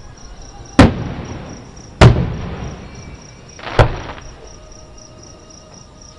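Aerial firework shells bursting, heard from about a mile away: three booms, each trailing off in a slowly fading rumble. Crickets chirp steadily underneath.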